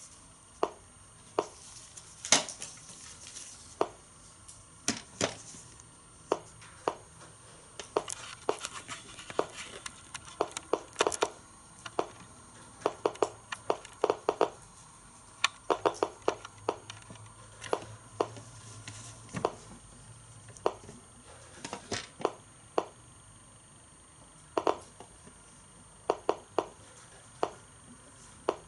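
Geiger counter clicks from a DP-5VB radiation dose-rate meter: sharp single clicks at random, uneven intervals, sometimes bunched, about two a second on average.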